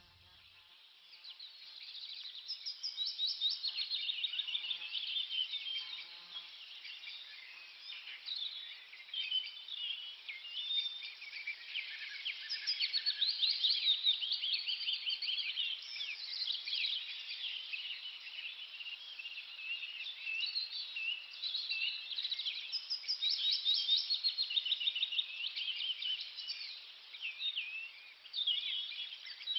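A chorus of small songbirds chirping and trilling at once: many high, quick calls overlapping with no pause.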